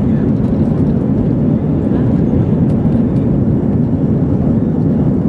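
Cabin noise of an Airbus A320-200 climbing out after takeoff: engine and rushing-air noise heard from a seat over the wing, a steady low rumble with no change in level.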